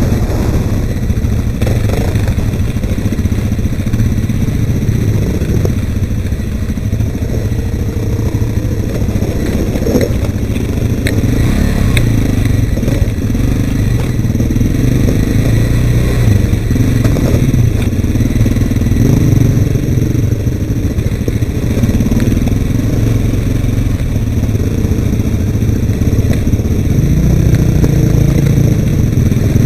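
ATV engine running steadily as it is ridden over mud and gravel, the engine note rising and falling a little with the throttle, with a few knocks about ten seconds in.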